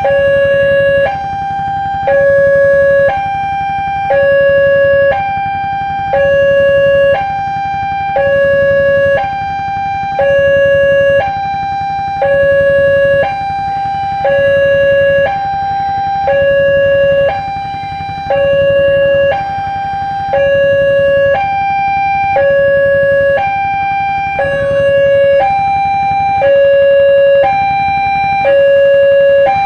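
Railway level-crossing warning siren sounding a two-tone hi-lo alarm, switching between a lower and a higher tone about once a second, with a low rumble beneath.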